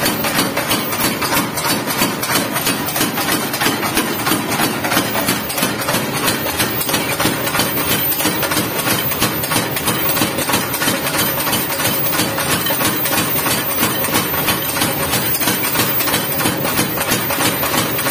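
Motor-driven mechanical forging hammer pounding red-hot steel in a rapid, steady rhythm, flattening a large ship's valve.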